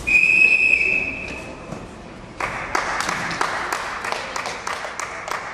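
A high, steady whistle sounding for about a second and a half and fading, then a crowd clapping from about two and a half seconds in.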